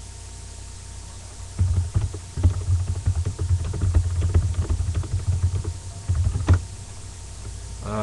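Hockey cards being handled and shuffled near the microphone: a dense run of rustles and taps with low thumps, starting about a second and a half in and stopping about six and a half seconds in.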